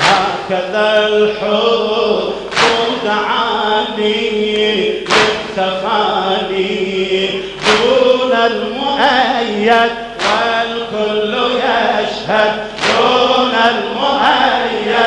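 Male voices chanting a Shia mourning latmiyya, with a sharp unison beat about every two and a half seconds from mourners striking their chests in time with the chant.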